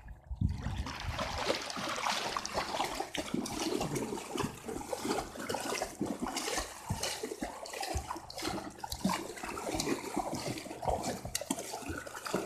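A dog paddling and thrashing through shallow water on a leash, kicking up continuous irregular splashing.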